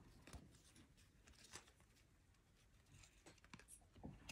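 Near silence, with a few faint soft ticks from paper trading cards being handled and slid off a stack one by one.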